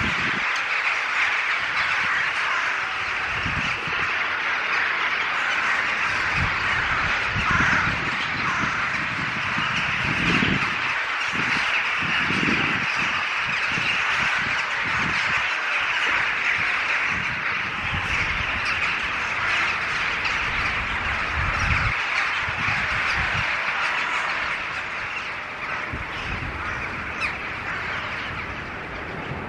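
A large flock of rooks cawing, a dense and continuous chorus of overlapping harsh calls.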